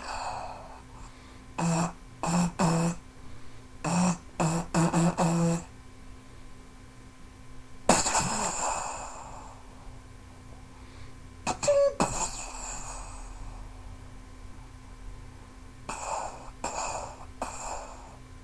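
Mouth-made sound effects of war machines. Groups of short, sharp vocal bursts come in runs of three to five, and two louder blasts, about 8 seconds and 12 seconds in, each trail off into a long fading hiss.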